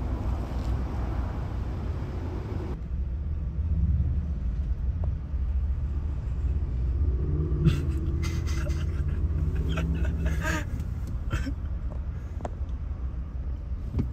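Low, steady rumble of a car idling in a drive-thru lane, with scattered clicks and knocks in the second half.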